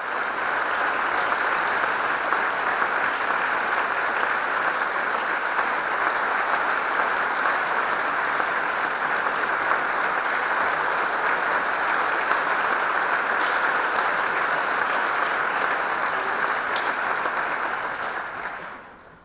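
Audience applauding, a steady dense clapping that dies away quickly near the end.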